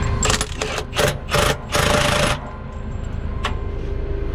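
An air impact wrench runs in four short bursts during the first two seconds, spinning on the wheel fasteners, over the steady low running of an idling engine. A single click follows about a second later.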